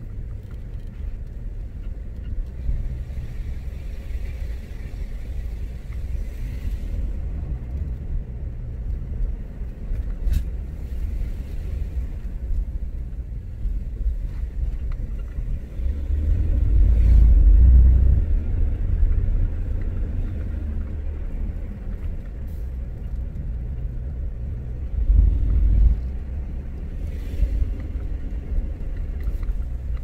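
A car driving on a mountain road: a steady low rumble of engine and road noise that swells louder for a few seconds a little past the middle and again briefly near the end.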